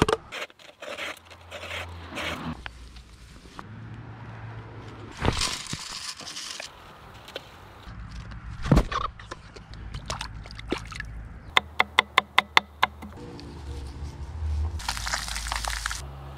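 A string of close-up handling sounds: a pocket knife cutting into a plastic bottle with crisp crackling clicks, then scattered scrapes and knocks, a quick run of about seven sharp clicks, and a hissing squirt of hot sauce from a squeeze bottle near the end.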